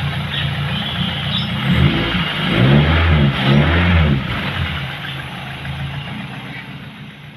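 Toyota 4A-GE twin-cam four-cylinder engine running, blipped up in revs a few times about two to four seconds in, then fading away near the end.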